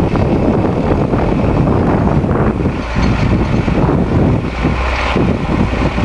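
Wind buffeting the microphone, over the steady running of two Zetor diesel tractors working under load while ploughing.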